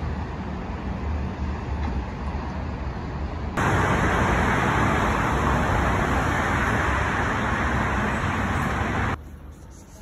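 Steady rush of road traffic from cars on a multi-lane road. It starts suddenly about a third of the way in and cuts off suddenly near the end. Before it there is a quieter, low distant city rumble.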